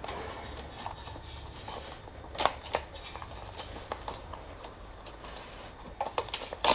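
Light metallic clicks and scraping as a throttle cable and the metal throttle housing are handled and worked loose, with a few sharp clinks a couple of seconds in and several more near the end.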